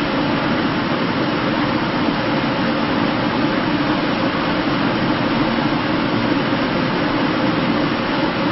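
A large ventilation system running steadily: an even rush of air over a low hum, with no change in level or pitch.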